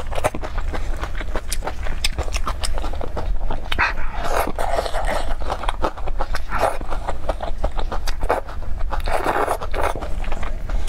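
Close-miked eating: wet chewing and lip-smacking clicks in quick succession, broken by a few longer breathy puffs.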